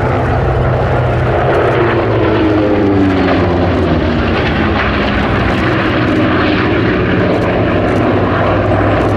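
Three Hawker Sea Furys' Bristol Centaurus 18-cylinder sleeve-valve radial engines running together in a loud, steady formation flypast. Their pitch falls as they pass overhead, a couple of seconds in.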